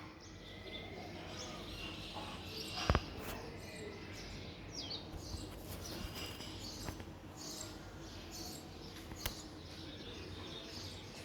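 Birds chirping now and then over a steady outdoor background, with a sharp click about three seconds in, the loudest sound, and a smaller one near the end.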